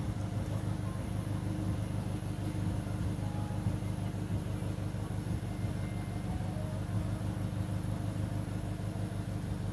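Toyota HiAce van's engine idling steadily, a low, even running sound with no revving.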